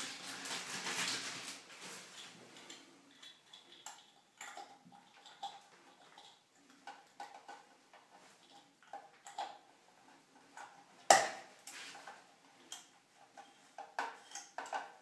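Small metal clicks and taps of a chrome shower-valve handle being fitted by hand onto the valve spindle against its chrome cover plate, irregular throughout, with one sharp, loud click about eleven seconds in. A brief hissing swell at the start.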